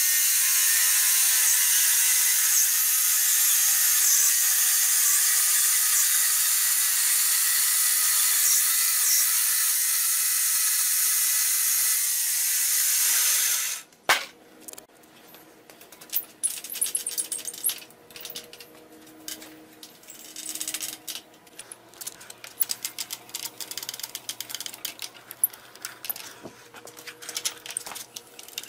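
Homemade band sawmill running its blade through a log: a loud steady hiss that cuts off suddenly about fourteen seconds in. After that come scattered light clicks and knocks.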